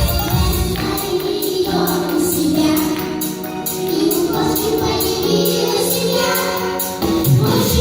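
Children's vocal ensemble singing a pop song over a backing track. The bass and beat drop out for a sung passage and come back in near the end.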